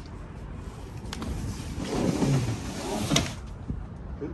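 Large cardboard speaker carton being slid across a van's cargo floor, a rising scraping rush ending in a sharp knock about three seconds in.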